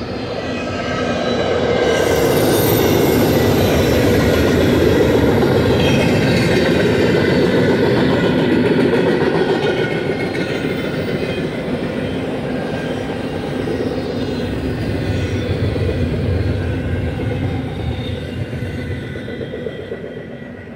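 Freight train cars rolling past on the mainline: a steady rumble of steel wheels on rail with thin, high squealing tones over it. It swells about two seconds in and eases off near the end.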